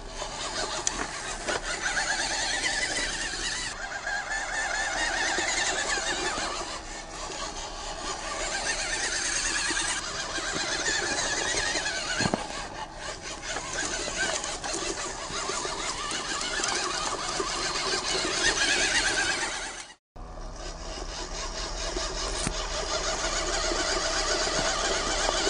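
Small RC crawler's 260 brushed electric motor and gearbox whining, the pitch wavering up and down with the throttle as the truck crawls over pine needles and dirt. The sound cuts out briefly about 20 s in, and the whine comes back steadier after.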